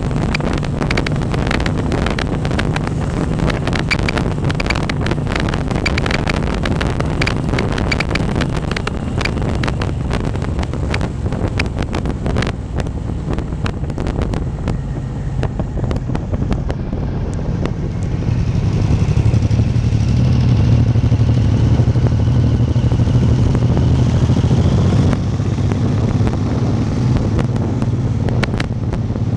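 Motorcycle engine running at road speed under wind buffeting on the microphone. About two-thirds of the way through, the wind crackle eases and the engine comes through louder and steadier for several seconds, then drops back.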